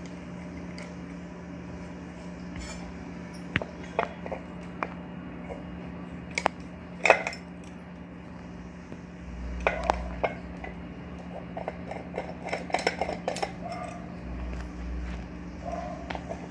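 Metal tools clinking and scraping against a ceiling fan's bearing as its cover is pried off, in scattered sharp clicks and short scrapes over a faint steady hum.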